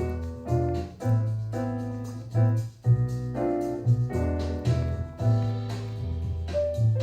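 Background jazz with piano chords over a bass line that changes note every half second or so.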